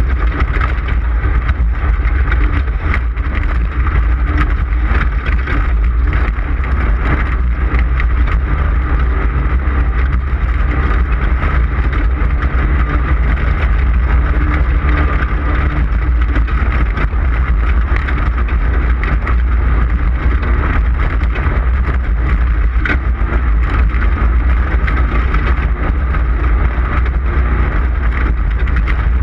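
Onboard sound of an off-road race car at speed: steady engine and drivetrain noise with a heavy low rumble, broken by frequent short clatters and knocks.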